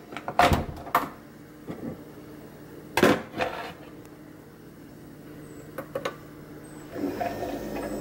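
Keurig single-serve coffee maker being readied: several sharp plastic clicks and clunks as its lid handle is worked, a mug is set under the spout and the brew button is pressed. Near the end a steady running noise starts as the machine begins to brew.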